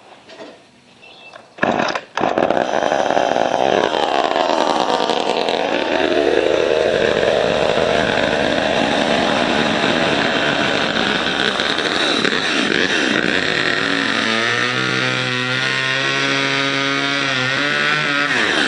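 Homelite XL two-stroke chainsaw running, starting abruptly about two seconds in. Its engine speed dips and climbs at first, then settles into a steady idle about two-thirds of the way through.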